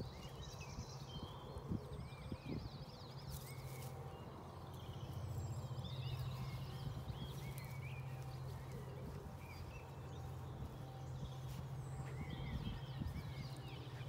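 Small birds chirping on and off in the background, short quick chirps, over a steady low hum.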